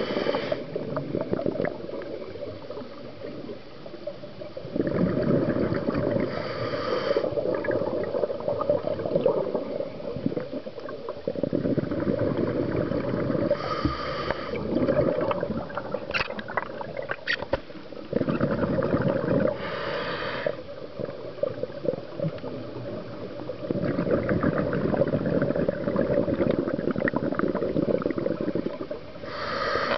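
Scuba diver breathing through a regulator underwater: loud gurgling rushes of exhaled bubbles about every six to seven seconds, with quieter stretches and short hisses between breaths.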